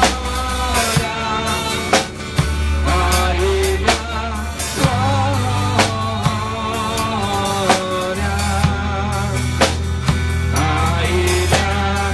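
Music with a drum kit keeping a steady beat, a bass line, and a wavering melody line above.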